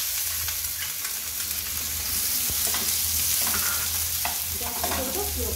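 Chopped onion sizzling in hot oil in a frying pan just after being added, with a steady hiss, while a steel spoon stirs it and clinks and scrapes against the pan several times in the second half.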